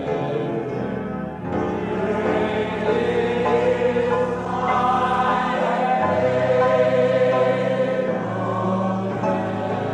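A church congregation singing slow, sustained worship with many voices together, over held low accompaniment notes that change a few times.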